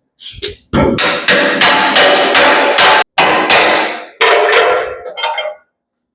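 Hammer blows on steel, a quick run of about three ringing strikes a second for several seconds, as bent steel on a skid-steer grapple attachment is knocked into line.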